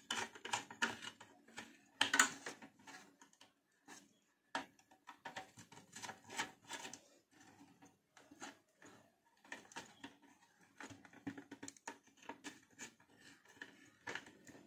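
Irregular small clicks, taps and rattles of hands handling wires and a screwdriver working the screw terminals of a metal-cased switch-mode power supply.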